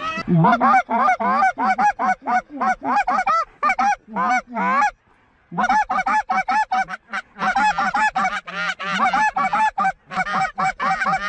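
Rapid, overlapping goose honks and clucks, several a second, with a brief break about halfway through.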